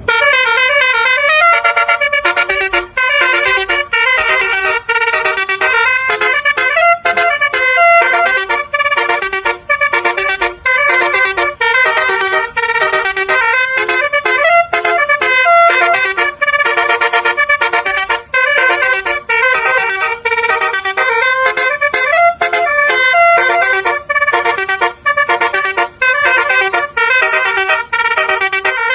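Bus basuri (telolet) musical horn playing a quick melody: a rapid run of short horn notes stepping up and down in pitch, with brief gaps between phrases.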